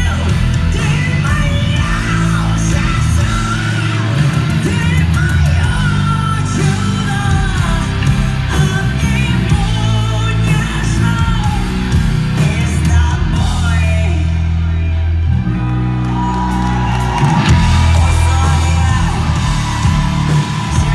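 Live band music with singing, loud, with a heavy bass line and rock-style vocals.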